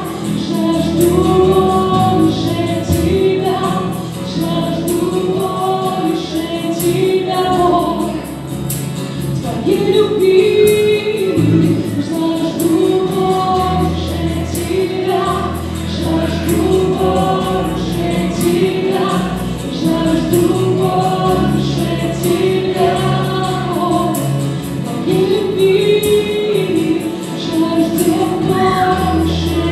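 Worship band performing a Russian-language worship song: several men and women singing the melody together in long held phrases over keyboard, acoustic guitar and bass guitar.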